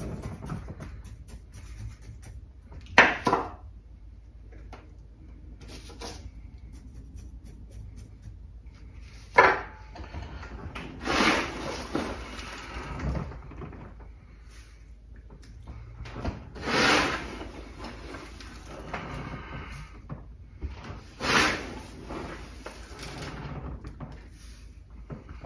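Hands scooping gritty granular bonsai soil from a plastic tub and sprinkling it into a bonsai pot: three rustling, scraping bursts of a second or two each, after two short sharp knocks in the first ten seconds.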